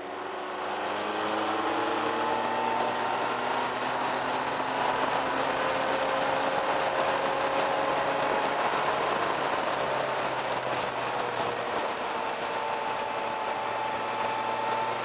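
Suzuki Bandit 1250's inline-four engine running at a steady cruise under a heavy rush of wind and road noise. The engine tone drifts gently down and back up as the speed changes through the curves. The sound builds up over the first second or so.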